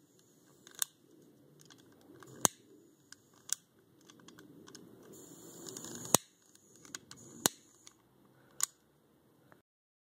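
Handheld plastic lighter torch being worked in the hand: about seven sharp clicks at uneven intervals, a second or so apart, with faint handling noise between them.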